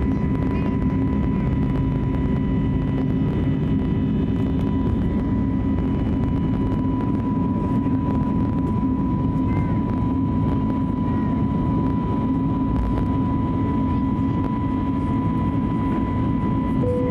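Steady cabin noise of an Airbus A320neo with CFM LEAP-1A engines, heard from inside the cabin: an even rumble with a constant whine near 1 kHz.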